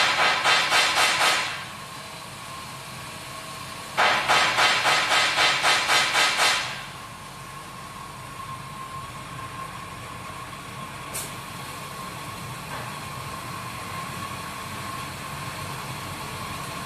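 Keg washing and filling machine running a cycle, hissing in rapid pulses, about four a second. The first spell stops about a second and a half in, and a second spell runs from about four to nearly seven seconds in. A steady high hum runs underneath, with a single click about eleven seconds in.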